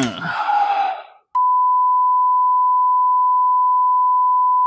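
A short sound effect with pitches falling away, then a steady 1 kHz test-tone beep, the tone that goes with a colour-bars 'technical difficulties' card. It starts about a second and a half in and holds one unchanging pitch.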